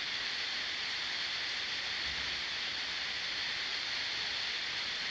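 Steady, even hiss with no other sound and no change in level.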